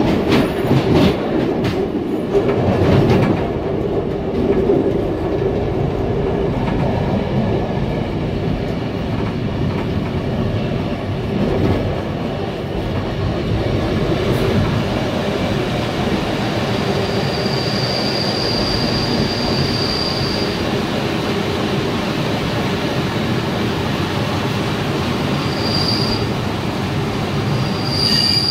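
Passenger train running at low speed, wheels clattering over points and crossings for the first few seconds, then rolling steadily. From about two-thirds of the way in, a high wheel squeal comes and goes several times as it pulls in along a station platform.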